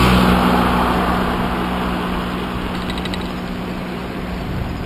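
A motor vehicle passing close by on the highway: a rush of tyre and wind noise with a steady engine note that drops in pitch as it goes by, then fades away.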